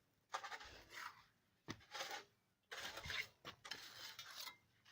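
Repeated scraping strokes of a hand tool on the floor surface, about one a second, with a couple of sharp clicks between them.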